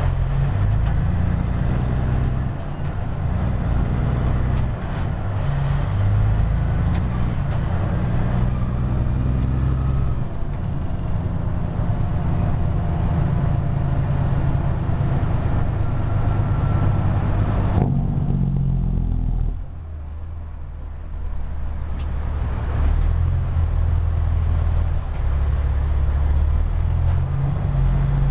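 Caterpillar C15 inline-six diesel of a Peterbilt 379, heard from inside the cab, pulling through the low gears of its 18-speed transmission. The deep engine note steps up and down with the shifts, and goes briefly quieter about two-thirds of the way through before picking up again.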